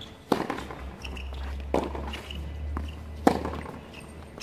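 Tennis ball struck by rackets in a rally on a hard court: three sharp pops about a second and a half apart, the first and last loudest, with fainter taps between them.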